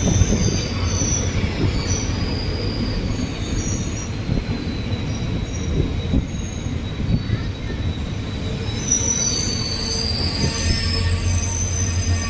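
Passenger train rolling slowly through a station, its wheels squealing on the rails over a steady low rumble. One long squeal falls slowly in pitch through the middle, and more squeals and a stronger rumble come in near the end.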